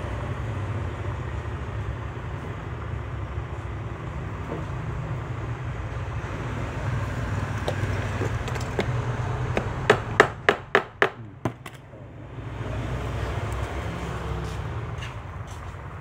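Sharp metallic taps from work on a metal link watch bracelet: a quick run of about six, roughly four a second, about ten seconds in, over a steady low background rumble.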